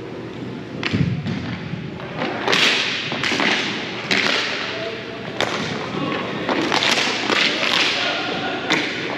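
A run of thuds and knocks from play in a team game, the loudest about a second in, with rushes of noise between them.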